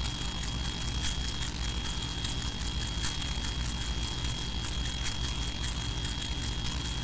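Steady low hum and hiss of a large hall's room noise, with a thin, constant high whine running through it.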